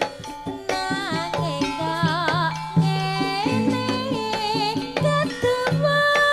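Live Javanese campursari band music played through a sound system: a woman sings a langgam melody with vibrato over steady kendang hand-drum strokes and melodic accompaniment.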